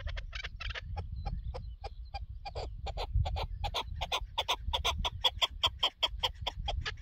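Chukar partridge calling: a long run of short, sharp 'chuk' notes that become steadier, faster and louder about halfway through, reaching some four a second. Wind rumbles on the microphone underneath.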